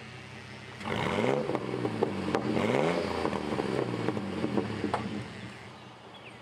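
1998 Chevy Blazer's straight-piped 4.3-litre V6 idling, then revved twice about a second in, its pitch climbing and falling each time, before dying back to a steady idle near the end.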